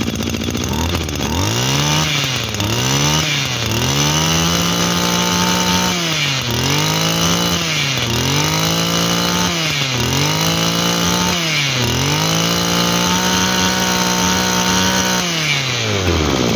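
Tanaka TBC-230 brush cutter's 23cc two-stroke engine revved by hand at the carburettor throttle. It climbs from idle to high revs and drops back about half a dozen times, then holds high for a few seconds and falls back to idle near the end.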